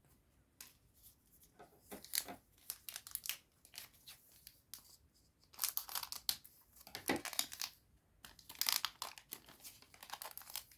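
Foil trading-card booster pack being torn open and its wrapper crinkled, in several irregular bursts of crackling.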